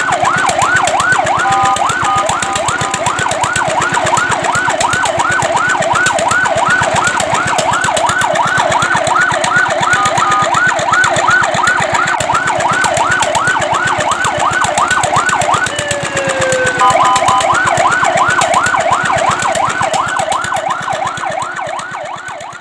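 Fire truck siren in a fast yelp, sweeping up and down about three times a second. A few times it breaks into short steady tones. A little past halfway it glides down in pitch before the yelp resumes, and it fades near the end.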